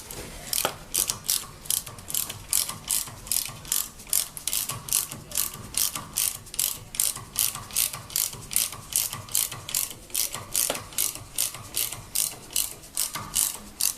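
Ratchet wrench clicking steadily, about three clicks a second, as it turns the nut on a threaded-rod press that draws a new rear suspension bushing into its mount.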